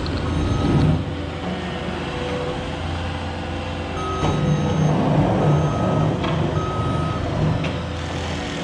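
A construction vehicle's reversing alarm sounds in repeated short beeps over the steady low hum of a heavy engine running.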